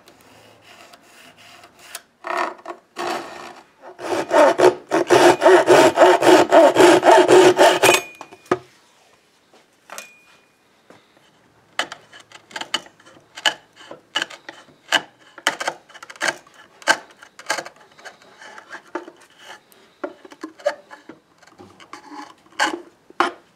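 A piece of wood being sawn by hand, with about four seconds of fast back-and-forth strokes. This is followed by a chisel paring new wood in many short, crisp strokes.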